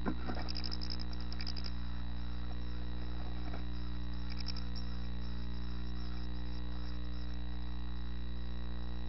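A brief scuffle as an adult chickadee lands in the nest box, then nine-day-old chickadee nestlings give high, thin begging calls in two short bouts as they are fed. A steady electrical hum runs underneath.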